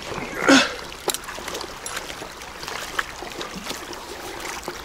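Shallow, fast river current rushing and burbling steadily around a wading angler. There is one short, louder burst falling in pitch about half a second in, and a few faint clicks later.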